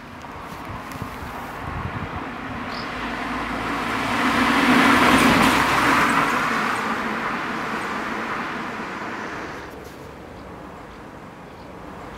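A Škoda Octavia estate driving past: engine hum and tyre noise swell to a peak about five seconds in, then fade as it moves away.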